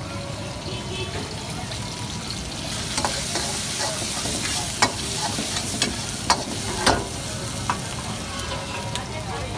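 Chicken, green pepper and onion sizzling in a steel wok while a metal ladle stirs and scrapes through them, knocking sharply against the wok several times. The sizzle grows louder about three seconds in.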